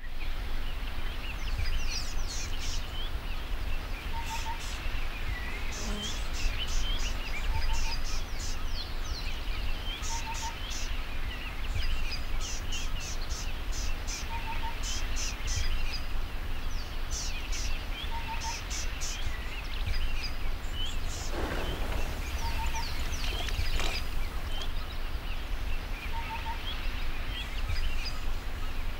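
Bush ambience: a chorus of birds chirping and trilling, with one bird repeating a short double note about every two seconds, over a steady low rumble. A brief rush of noise comes a little past the middle.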